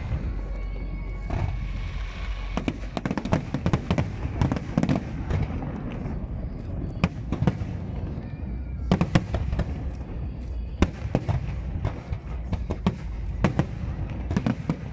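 Aerial fireworks shells bursting in quick succession: a dense string of sharp bangs and crackles over a continuous low rumble, heaviest in a couple of clusters in the middle.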